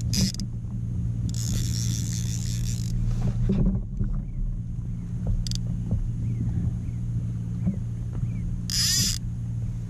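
Steady low hum and rumble from a microphone that has got water in it. Stretches of hiss come in near the start and again near the end, and a few faint short squeaks sound in between.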